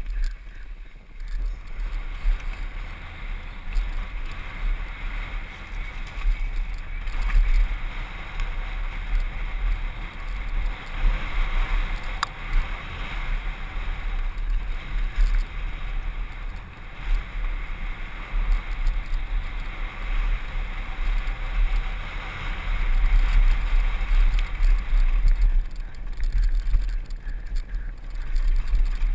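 Mountain bike rolling down a rocky slate trail, heard from a helmet-mounted camera: wind buffeting the microphone, with tyres crunching over loose stones and the bike rattling, swelling and easing with the terrain. A single sharp click comes about twelve seconds in.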